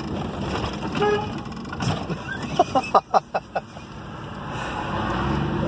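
Road noise inside a moving car, and about halfway through a quick run of about six short car-horn beeps.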